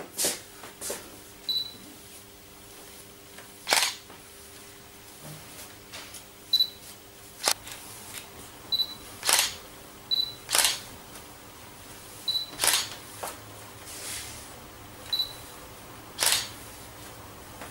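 A comb drawn through long wet hair in short, sharp strokes, about a dozen at uneven gaps of a second or two, over a faint steady hum.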